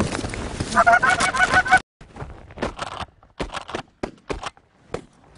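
Rapid goose honks and clucks, quick repeated notes at two steady pitches, which cut off suddenly about two seconds in. A scatter of short, sharp clicks and knocks follows.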